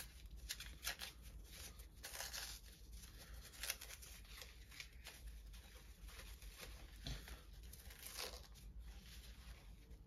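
A small package being opened by hand: faint, scattered rustling and tearing of packaging with light handling taps.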